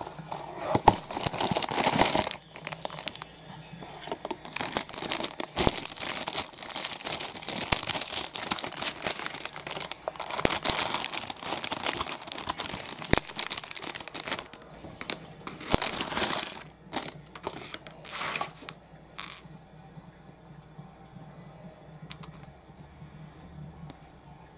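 Clear plastic wrapping crinkling and rustling as it is handled and pulled off a diecast model airplane, with scattered sharp clicks. The crinkling stops about three-quarters of the way through, leaving only quiet handling.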